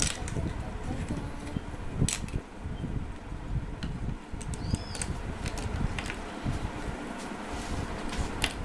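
Plastic Playmobil figures being picked up and set down on a wooden play table: scattered light clicks and knocks, the sharpest about two seconds in and near the end, over a steady low background rumble.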